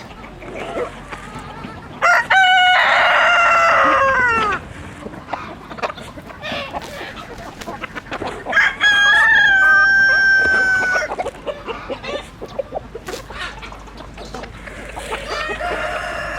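A rooster crows twice, loud drawn-out calls of about two seconds each, starting about two seconds in and again about eight and a half seconds in, the first falling in pitch at its end. Chickens cluck in between.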